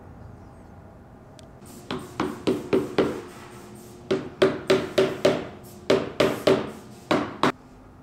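A hammer knocking a wooden dovetail joint together: about fifteen sharp knocks, each with a short woody ring, in four quick runs of five, five, three and two, about four a second.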